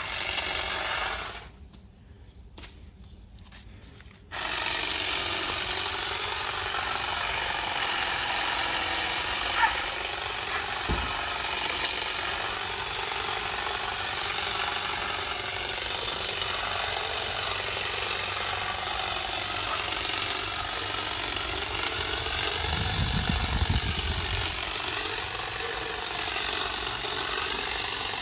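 Saker cordless hedge trimmer's battery motor and reciprocating blades running steadily while cutting through a leafy bush, the pitch wavering a little as the blades meet the branches. The trimmer starts up about four seconds in, after a short quieter stretch.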